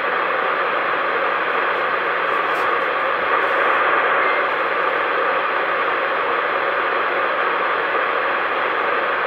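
CB radio receiver hissing with steady static between transmissions, the hiss muffled and thin like audio through a small radio speaker.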